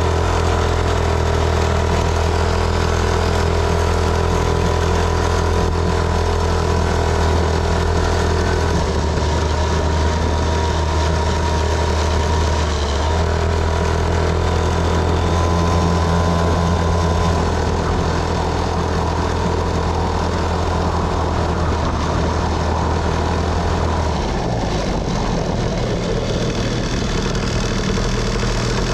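Small dirt bike engine running steadily under way. About four seconds before the end its note changes and falls.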